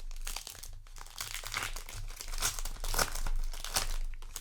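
Foil wrapper of a Weiß Schwarz trading card booster pack crinkling and tearing as it is opened by hand, busiest in the middle and latter part.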